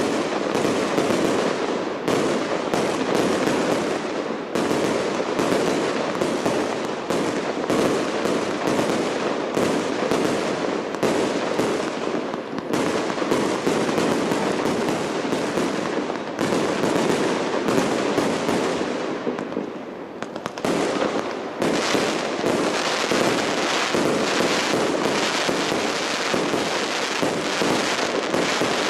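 Professional display fireworks: a rapid, continuous barrage of bangs and crackling from aerial shells. About two-thirds of the way through it eases off briefly, then resumes as a denser, brighter crackle.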